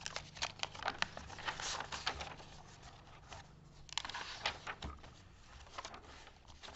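Paper pages of a handmade junk journal rustling and crinkling as they are folded back and turned by hand, in quick crackles. These are busiest in the first two seconds, die down briefly, and come again about four seconds in.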